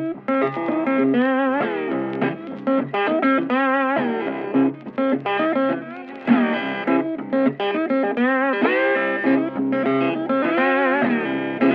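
Guitar music: a melodic lead line with bent and wavering notes over a sustained accompaniment.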